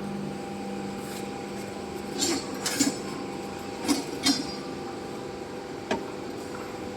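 Metal tools clinking against metal, about six short sharp clinks spread over a few seconds, over a steady hum.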